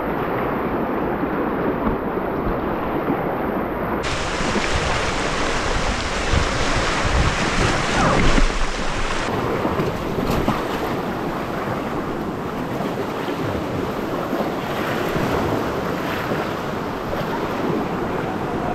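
Whitewater rapids rushing around an inflatable kayak, with water splashing against and into the boat and wind buffeting the microphone; loudest about eight seconds in.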